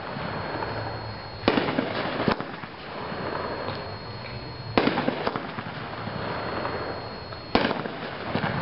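Brothers Solar Style 12-shot fireworks cake firing: three sudden bangs about three seconds apart, each trailing off into a spell of noise.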